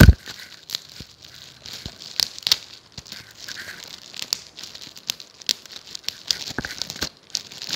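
Shiny gold gift-wrapping paper being picked at, crinkled and torn open by hand, in a run of sharp crackles and rustles. A heavy thump right at the start is the loudest sound.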